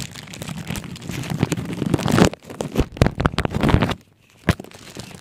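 Plastic bread bag crinkling and crackling in someone's hands as they work at opening the new, still-sealed bag. The crackles come irregularly, thickest in the middle, then break off briefly about four seconds in before one more crackle.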